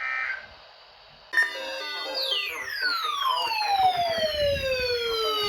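A brief chirp of Emergency Alert System data tones, the end-of-message burst closing a severe thunderstorm warning. About a second later a loud siren sound starts, its pitch falling slowly over several seconds with many overtones above it, winding down.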